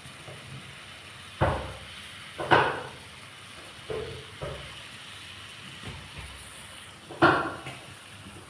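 Kitchen utensils knocking and clattering five or so times over a steady low hiss. The loudest knocks come about a second and a half, two and a half and seven seconds in.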